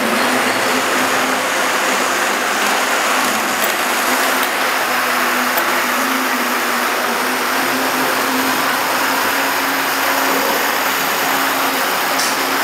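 A small motor running steadily: a constant whirring noise with a low hum underneath.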